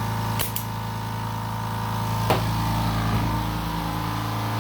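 Air compressor running steadily, supplying a resin-casting pressure pot held at 50 psi, with two sharp clicks, one about half a second in and one past two seconds.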